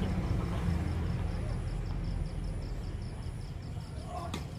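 Outdoor background noise: a steady low rumble with a faint, fast, even high ticking, and a brief faint voice near the end.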